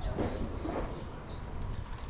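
Outdoor street ambience from a moving bicycle: a low wind rumble on the microphone, with a few faint, short chirps over it.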